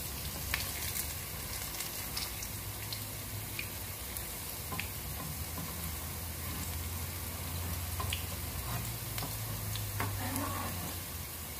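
Grated-potato hash brown patties sizzling steadily in shallow oil in a frying pan, with many small crackles and pops. A metal spatula knocks and scrapes in the pan now and then as the patties are turned over.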